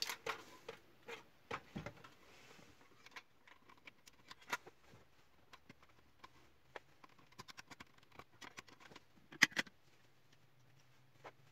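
Scattered small clicks and light knocks of plastic printer parts being handled as a laser printer's gear assembly is fitted back in place, with a louder pair of knocks about nine seconds in.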